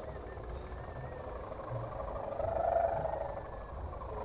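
A kite's 4-metre sendaren (bowed hummer ribbon) droning with a coarse, snore-like buzz that swells about two and a half seconds in and then eases, over a low rumble.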